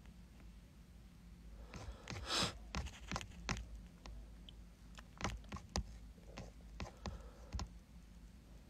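A series of irregular soft clicks and taps close to the microphone, with a short rustle about two seconds in.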